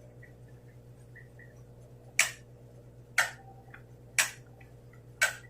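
Sharp clicks of a switch, four of them about a second apart, pairing into two long on–off spans: the two dashes of the Morse letter G (dash-dash-dot) being keyed out.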